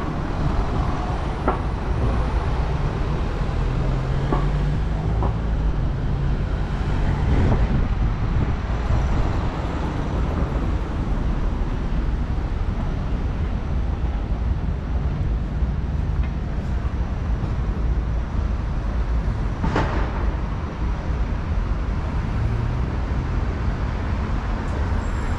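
Steady city road traffic: passing cars and buses running, with a low engine hum swelling twice and a few short knocks, the sharpest about twenty seconds in.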